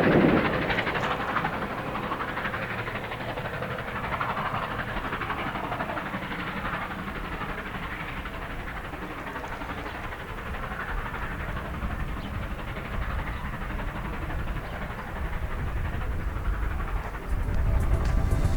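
Train behind CP 2816, a 4-6-4 Hudson steam locomotive, rolling along the rails with a steady rumble and wheel clatter. The sound drops sharply in the first second, then holds at a lower, even level.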